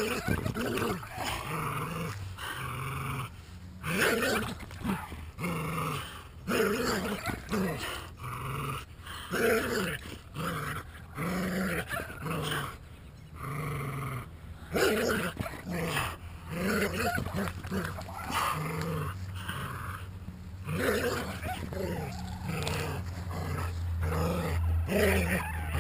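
Entlebucher Mountain Dogs growling in play while tugging on a toy, in repeated growls of a second or so with short breaks between them.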